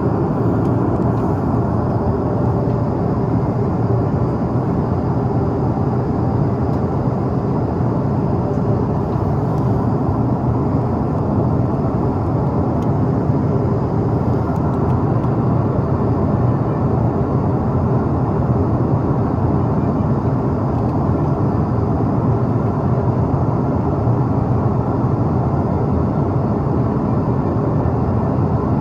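Steady cabin noise inside an Airbus A330-300 airliner: a constant low rush of engine and air noise with no change.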